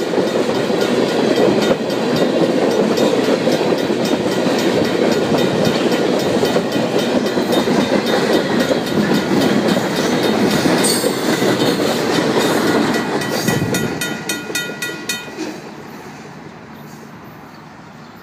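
Freight cars of a train rolling past, their wheels running steadily over the rails. A crossing's mechanical bell rings rapidly over the noise. The rumble fades as the train's rear passes, about three-quarters through, and the bell stops a little after.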